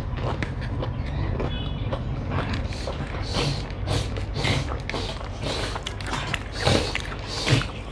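Close-miked eating sounds: chewing and wet mouth smacks, with fingers squishing and mixing rice and fried bitter gourd on a plate. It comes as an irregular run of small clicks and smacks over a low steady hum.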